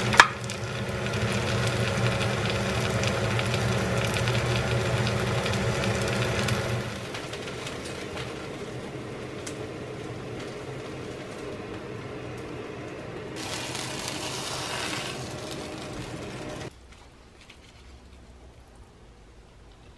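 Vegetable-and-shrimp pancake frying in oil in a pan, a steady sizzle over a low hum, with one sharp spatula tap just after the start. After about seven seconds it drops to quieter kitchen sounds of a spoon at a small glass bowl of dipping sauce. Near the end it falls nearly quiet, with faint clicks.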